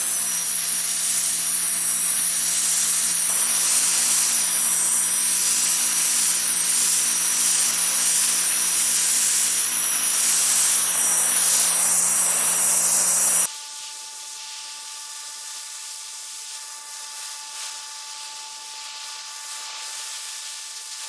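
Ryobi 1600 psi electric pressure washer running and spraying: a loud, steady water-jet hiss over the pump motor's hum. About thirteen seconds in it cuts off suddenly, and a much quieter steady hum remains.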